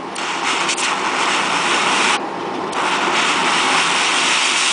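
Steady loud hiss of a homemade hydrogen torch: hydrogen from aluminium and sodium hydroxide, mixed with pump-fed air, jetting from the nozzle. The sharper part of the hiss drops out briefly a little over two seconds in.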